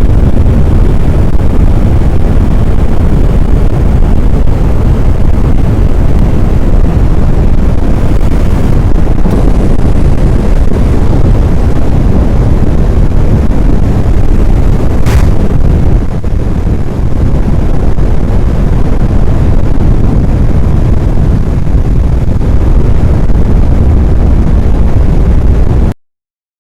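Strong wind buffeting the microphone: a loud, steady low rumble that cuts off suddenly near the end.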